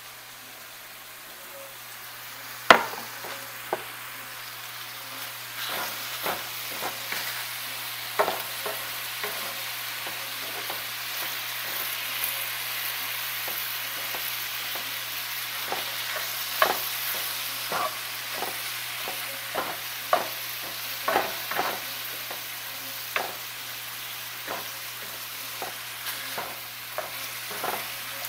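Ground beef frying with a steady sizzle in a cast-iron skillet, alongside diced onion in bacon grease. A silicone spoon spatula taps and scrapes the pan many times as the meat is broken up and stirred, with one louder knock about three seconds in.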